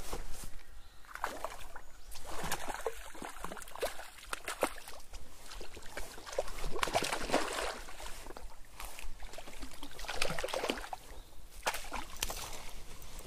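Irregular bursts of splashing and sloshing from a big hooked rainbow trout being fought in shallow creek water, mixed with rustling of bankside vegetation.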